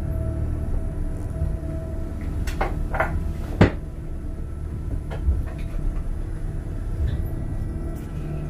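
Small hillside monorail car running along its single rail, heard from on board: a steady low rumble with a hum that fades out about two seconds in, and a scatter of clacks and knocks from the car and track. The sharpest knock comes about three and a half seconds in.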